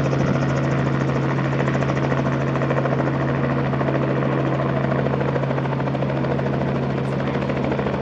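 Aircraft engine running steadily close by: a loud, even low hum with a fast, fine pulsing from the blades.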